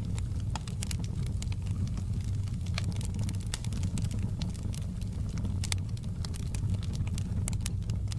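Wood fire in a fireplace crackling, with frequent irregular sharp pops and snaps over a steady low rumble of burning.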